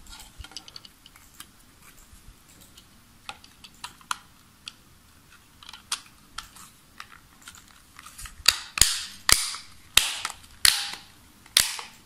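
Plastic case of a Tivibu TV remote control being pressed back together by hand: light plastic taps and rattles, then from about eight seconds in a run of sharp clicks, one every half second or so, as the case's snap-fit clips lock into place.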